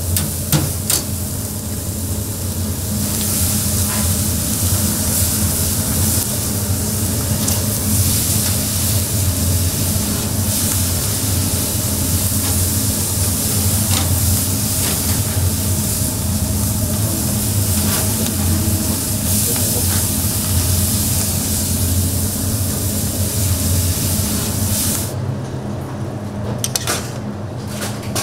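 Food sizzling over high heat: a steady hiss over a low machine hum, with a few faint clicks. The hiss drops away about 25 seconds in.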